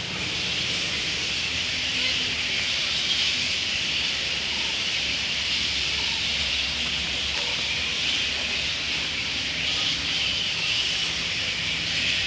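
A dense, steady, high-pitched din of animal calls, an even unbroken hiss-like chorus with no pauses.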